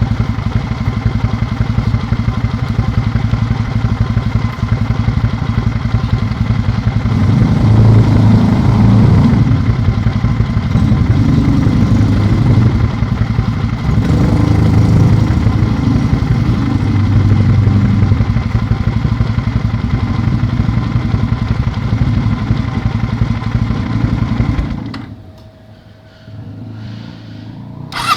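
Kawasaki W650's air-cooled parallel-twin engine running through a BOATRAP Capton slip-on 'cigar' silencer, a deep exhaust note that swells louder several times. It drops away sharply a few seconds before the end, then comes back.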